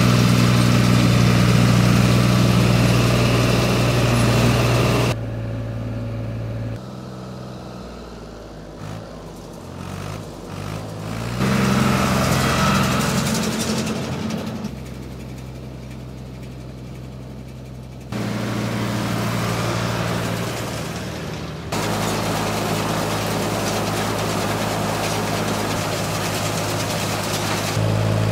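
Ford 4000 tractors' three-cylinder engines running steadily, heard in a series of separate takes that change abruptly, some close and loud, some fainter and more distant.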